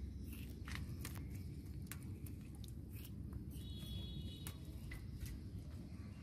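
Baby monkey eating and then scampering on a woven metal mesh platform: scattered light clicks and taps over a low steady rumble, with a brief high squeak about three and a half seconds in.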